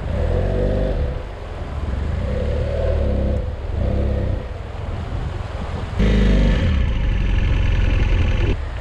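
BMW F800GS's parallel-twin engine revving in repeated rising and falling surges as the motorcycle fords a shallow rocky river. About six seconds in the sound jumps suddenly louder, with more hiss over the engine.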